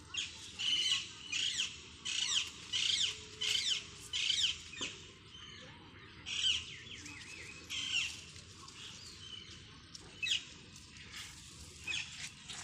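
Bird calling: a run of repeated high-pitched calls about twice a second, then scattered calls from about six seconds in.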